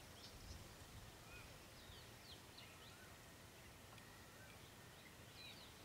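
Near silence: faint outdoor ambience with scattered short, high bird chirps, a few around two seconds in and again near the end.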